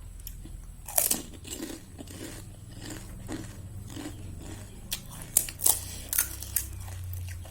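Close-miked crunching and chewing of crisp golgappa (pani puri) shells filled with spicy water. There is a sharp crunch about a second in, scattered softer bites, then several loud crunches in quick succession near the end.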